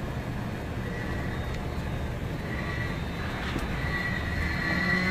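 Mexico City Metro train: a steady low rumble with a thin, high-pitched whine that comes and goes, strongest near the end.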